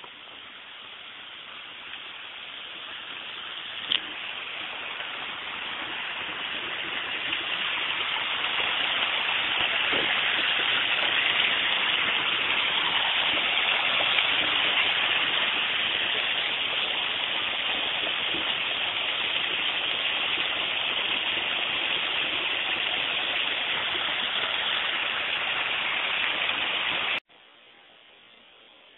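Small garden waterfall splashing steadily, growing louder over the first several seconds, with a single click about four seconds in. Near the end the water sound cuts off abruptly, leaving only a faint hiss.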